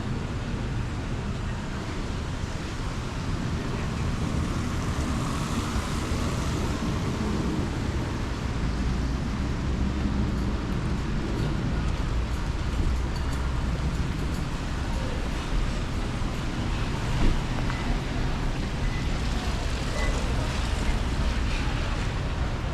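Steady city street traffic, a constant low rumble with hiss from passing vehicles, and one brief knock about three-quarters of the way through.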